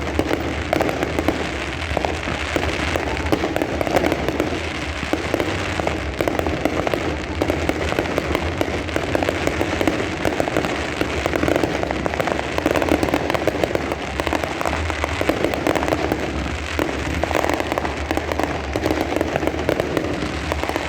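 Aerial fireworks going off in a dense, continuous barrage of rapid pops and crackles with no pause.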